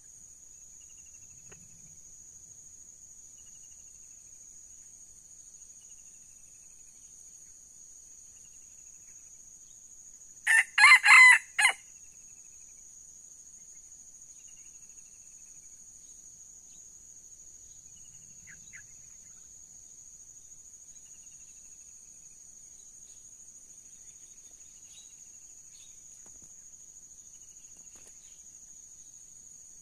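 Red junglefowl rooster crowing once, about ten seconds in: a short, clipped crow in four quick parts lasting about a second and a half. Insects buzz steadily and high-pitched throughout.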